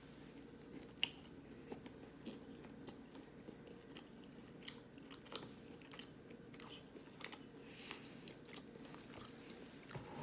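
A person chewing and biting battered vegan nuggets close to the microphone, with faint, irregular crunches and mouth clicks, the sharpest about a second in.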